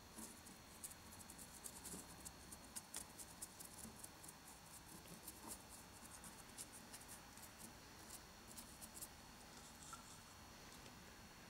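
Faint, irregular scratchy dabbing of a paintbrush working acrylic paint into a rough model rock face, several small scrapes a second.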